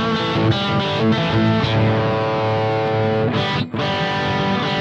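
Electric guitar played through a Carl Martin Plexitone overdrive with the compressor bypassed: the dry distorted tone, notes sustaining, with a brief break about three and a half seconds in.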